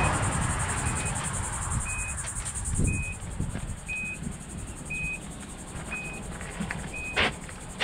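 Steady high-pitched insect chirring, with a short high beep repeating about once a second and a sharp knock near the end.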